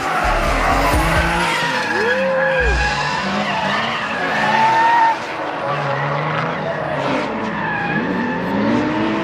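Drift cars on a racetrack: engines revving up and down and tires squealing as they slide, several wavering pitches overlapping. It grows louder about five seconds in, then drops suddenly.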